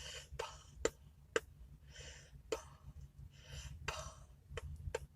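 Faint breathing close to the microphone, a few soft breaths or sighs, with scattered sharp clicks and a low steady hum underneath.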